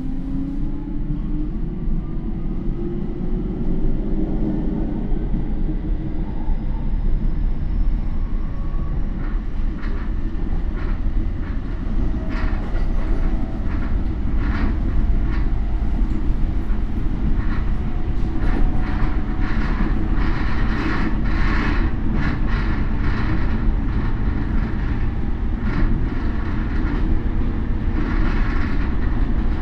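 Running sound inside a Toei 10-300 series car with a Mitsubishi IGBT VVVF inverter: the traction motor and inverter whine rises in pitch as the train accelerates over the first several seconds. The train then runs at speed under a steady rumble, with wheels clicking over rail joints in repeated groups from about a third of the way in.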